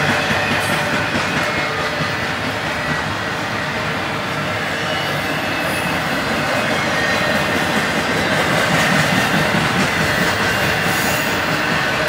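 Intermodal freight cars, loaded with stacked containers and highway trailers, rolling past at speed: a steady rumble and clatter of steel wheels on the rail, with a thin, steady squeal from the wheels.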